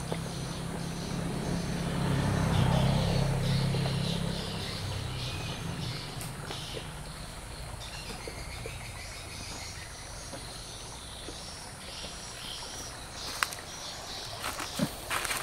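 Tropical forest ambience by a river: birds calling and insects buzzing over a steady background wash. A low motor drone swells and fades away within the first five seconds, and a few sharp knocks come near the end.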